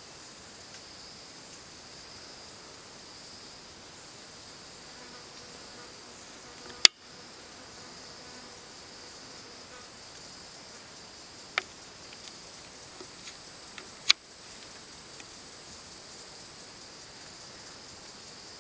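Steady high-pitched insect chorus, one strand of it growing louder about ten seconds in and dropping back near the end. Three sharp clicks cut across it, the first and loudest about a third of the way in.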